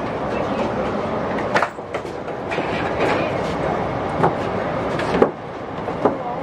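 Din inside a crowded commuter train carriage as passengers board, with a few sharp knocks along the way. A thin steady tone comes in about two and a half seconds in.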